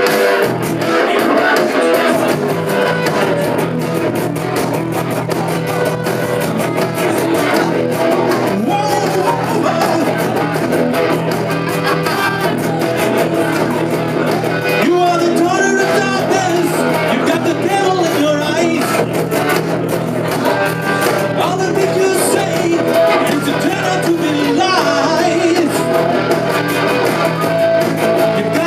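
Live rock band playing an original song: electric guitars over a steady bass line, with vocals joining about eight seconds in.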